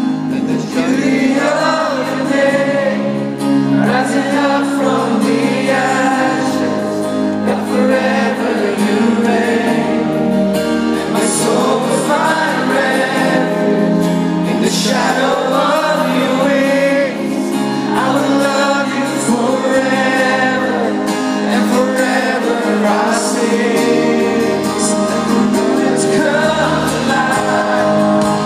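Live gospel-style worship music: a band playing with singers in full voice, heard from the crowd in a large arena.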